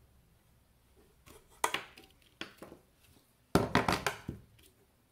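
Knocks and clatter of a metal-framed circuit-board assembly from an avionics control display unit being handled and laid down on a workbench. There is a sharp knock about a second and a half in, then a louder run of several quick knocks a little past the middle.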